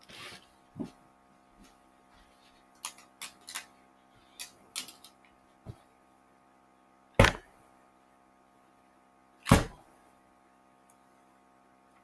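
Handling noise: scattered small clicks and taps, then two loud thumps about two seconds apart, over a steady low hum.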